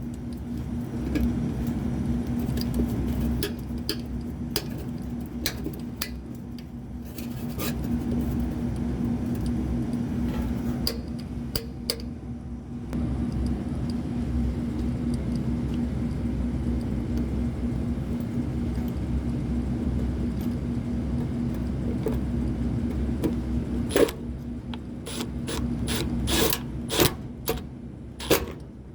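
Sharp metallic clicks and clatters of hand tools and panel parts during work on an HVAC unit, over a steady low mechanical hum. A cluster of louder clicks comes near the end.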